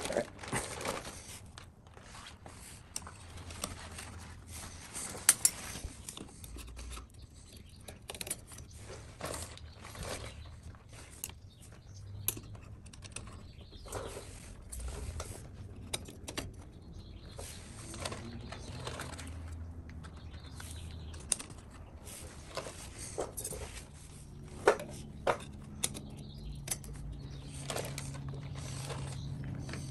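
Scattered light clicks and clinks of oil-soaked clutch plates being slid one by one onto a Hinson clutch basket and hub. A faint steady low hum comes in near the end.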